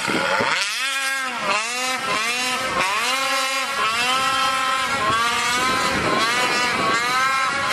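Snowmobile engine revved hard in repeated throttle bursts, its pitch climbing and dropping about once a second.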